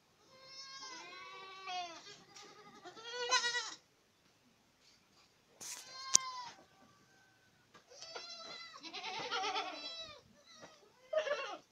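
Boer goat kids bleating, several wavering calls coming in overlapping bunches from more than one kid. A single sharp click about six seconds in.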